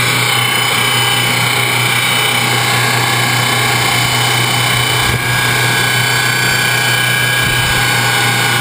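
Homemade electric outboard motor driven by an angle grinder, running steadily under way with a constant-pitch electric motor whine over a steady low hum.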